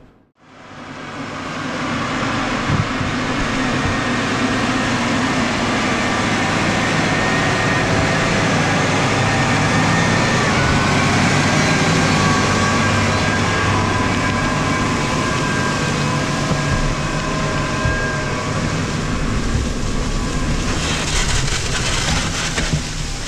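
Case IH 400 tracked tractor pulling a reversible plough under load: the engine runs steadily, with held whining tones over it. It fades in about half a second in. Near the end a rougher, gritty rustle joins as the plough bodies turn the soil close by.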